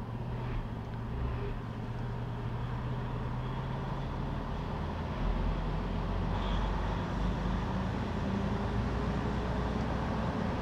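Semi-truck's diesel engine running at low speed, heard from inside the cab. About halfway through, the low rumble grows louder and the engine note shifts.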